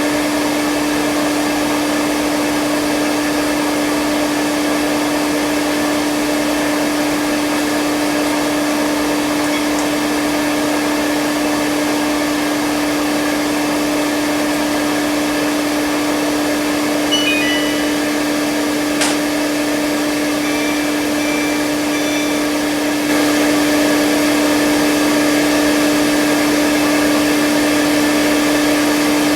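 Front-load washing machine in its spin cycle, a steady whir with a constant hum. A few faint ticks come around the middle, and it gets slightly louder about 23 seconds in.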